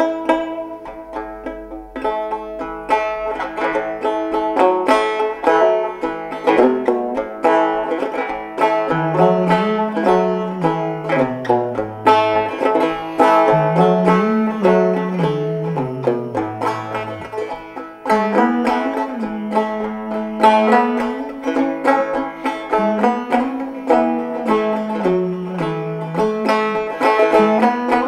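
Banjo music: a banjo picking a slow, steady tune of many quick plucked notes over a lower line that rises and falls through the middle.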